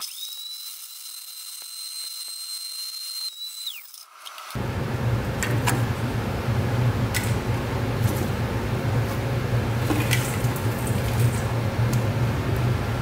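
Blender motor whining high and steady, then dropping in pitch as it winds down about four seconds in. After that a steady low hum, with a few light clicks and clinks as the crushed circuit-board debris is handled.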